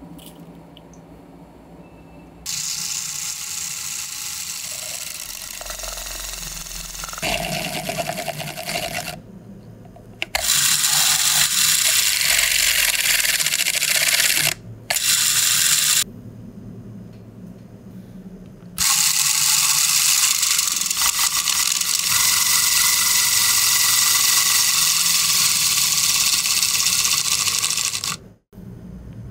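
A small Lego electric motor spins a gear train and a wooden-stick drill bit in several separate runs that start and stop abruptly. The loudest runs are a dense grinding scrape as the bit bores through cardboard and then through a thin plastic cup.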